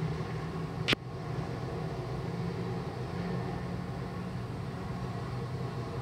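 Steady low hum with a faint hiss, broken by one short sharp click about a second in.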